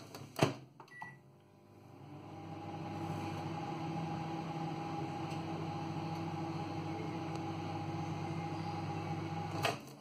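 A few clicks and a short beep, then a microwave oven running with a steady hum for about seven seconds while it heats Haribo sweets. The hum cuts off with a sharp click near the end as the door is opened.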